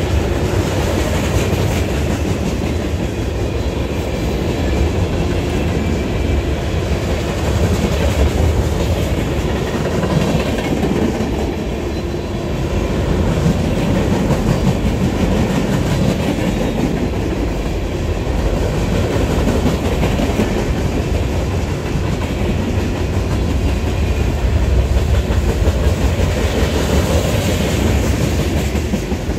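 A train rolling past, its wheels clattering steadily over the rail joints.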